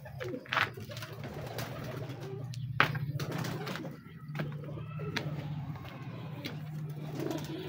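Pigeons cooing again and again, low and droning. Two sharp knocks come through, the louder one about three seconds in.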